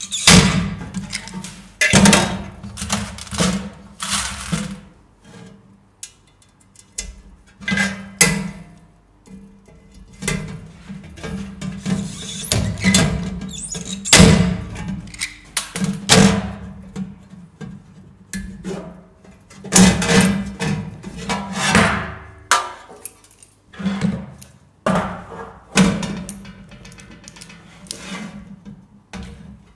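Hand pop-rivet gun setting blind rivets through a galvanised sheet-metal toolbox and handle: a series of sharp metal clacks, every second or two.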